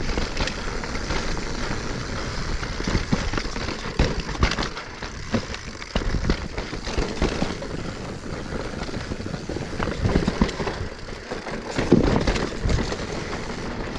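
Mountain bike ridden over a rocky trail section: tyres grinding over rock and roots, with frequent knocks and rattles from the bike as it hits the rocks.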